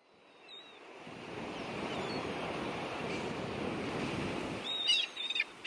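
Sea surf washing, fading in over the first second and then steady. Near the end come a few short, high calls that fall in pitch.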